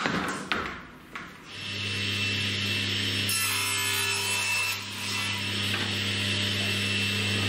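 A power saw runs with a steady hum and cuts through a board, rasping, after a few sharp knocks in the first second.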